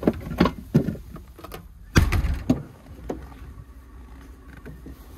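A few knocks and clunks of gear being handled around an open pickup truck, with one heavy thump about two seconds in.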